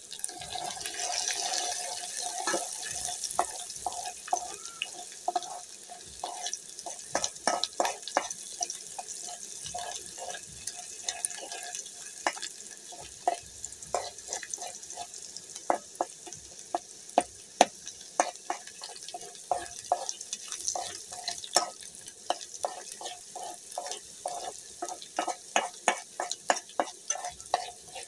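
Onions frying in oil in an aluminium pot, a steady sizzle, while a metal spoon stirs them with frequent clinks and scrapes against the pot, some of them ringing.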